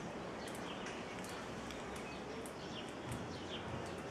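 Outdoor ambience: a steady background hiss with short, high bird chirps and ticks scattered throughout.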